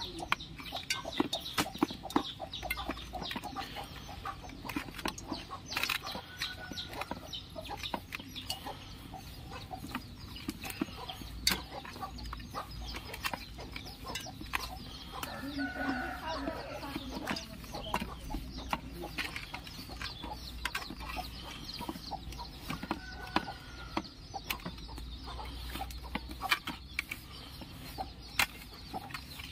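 Fish pieces being turned and rubbed by hand in a steel plate, with many small clicks and taps. Chickens cluck a few times in the background.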